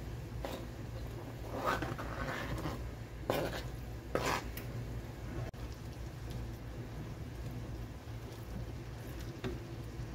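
Raw chicken pieces scraped off a plastic cutting board into a pan of thick tomato sauce, with several short wet plops and scrapes in the first half. Then a spatula stirs the chicken through the sauce, quieter.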